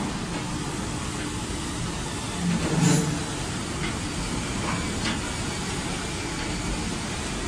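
Aluminium dross cooling plant machinery running steadily, a continuous mechanical drone with a brief louder swell and low hum about three seconds in.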